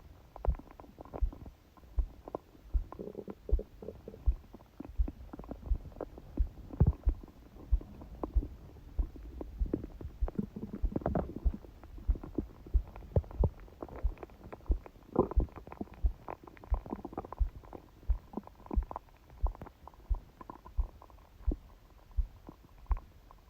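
A sleeping person's stomach gurgling and rumbling in irregular bouts, picked up by a phone pressed onto the belly. Under it a fast heartbeat thumps steadily, about three beats every two seconds.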